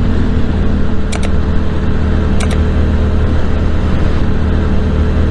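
Yamaha MT-07's parallel-twin engine running steadily as the motorcycle rides along, under a constant rushing noise. Two quick pairs of short high clicks come about a second and two and a half seconds in.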